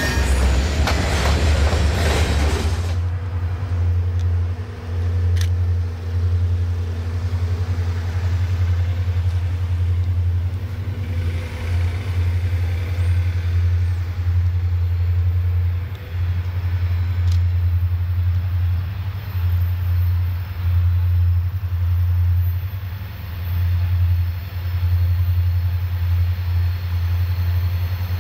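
EMD diesel locomotives running with a steady, heavy low rumble that swells and dips. A louder, noisier sound fills the first three seconds and cuts off abruptly.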